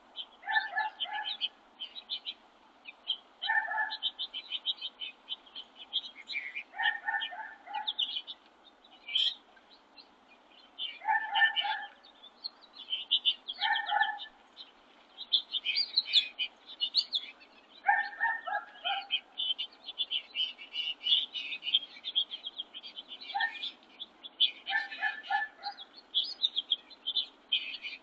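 Backyard birds at a winter feeder chirping and twittering almost without pause, with a lower, harsher pulsed call about a second long repeated about eight times.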